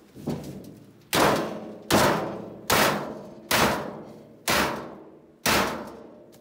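Hammer striking the sheet-steel cabinet of a gas dryer to knock its top panel loose: a soft knock, then six hard metallic bangs about one every 0.8 s, each ringing out briefly.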